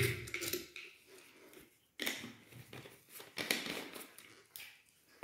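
Plastic bottle of urine test strips being handled in gloved hands while a strip is taken out: a few short plastic rustles and clicks with pauses between.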